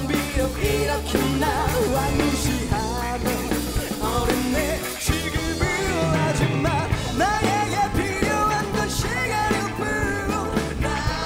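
Live pop-rock band playing over drums and bass, with a wavering melodic lead line that bends in pitch and comes forward about halfway through.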